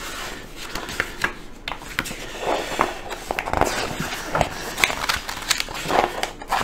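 Paper rustling and crackling as a glossy assembly-guide magazine is opened and its pages are turned by hand, in a string of short irregular rustles.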